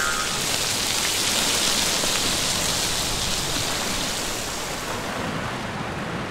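Sizzling sound effect: a steady hiss with no pitch, easing off slightly near the end.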